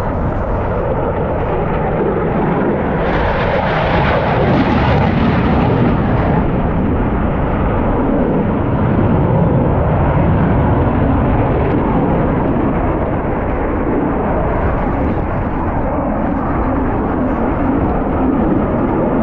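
Loud, continuous jet noise from an RAF Eurofighter Typhoon's twin EJ200 turbofan engines, getting slightly louder and more hissing around three to six seconds in.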